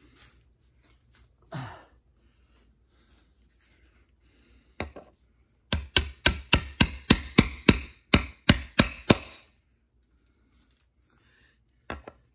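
Hammer tapping on a socket to drive a sealed ball bearing into the hub of a John Deere L130 lawn tractor front wheel, in place of the old bushing. One sharp tap about five seconds in, then a quick run of close to twenty taps at about five a second, and two more taps near the end.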